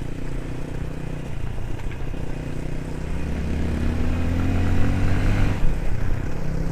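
Aveta VTM 250 LX motorcycle engine running while riding, its pitch rising slightly for a couple of seconds as it accelerates, then dropping off suddenly about five and a half seconds in.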